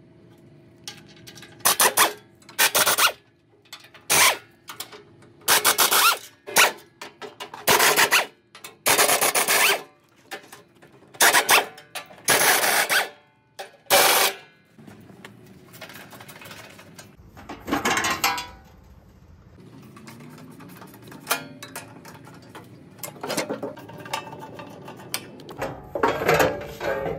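Pneumatic wrench on an air hose running in short bursts of under a second each, one after another, as it spins out the bolts of a stump grinder's belt guard. The bursts come thick and fast at first and then thin out, with quieter rattling and handling of the metal guard between them.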